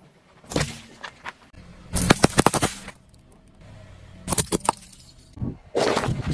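Objects cracking and crunching as a car tyre rolls over them, in several bursts of sharp pops. The longest and loudest is a rapid run of cracks about two to three seconds in; more follow around four and a half seconds and near the end.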